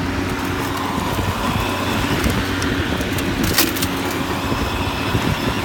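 Battery-powered self-propelled lawn mower running, its electric motor humming steadily as the drive handle is pulled to set it moving. A sharp click about three and a half seconds in.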